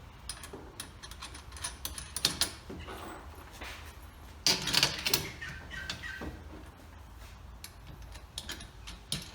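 Irregular clicks and knocks of bolts, nuts and metal axle braces being handled as a wheelbarrow's axle brace is bolted to its arm, with a louder clatter about halfway through.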